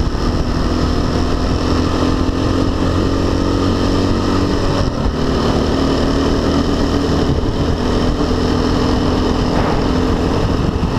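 Dirt bike engine running at a steady cruising speed, its pitch holding fairly even with a brief dip about five seconds in.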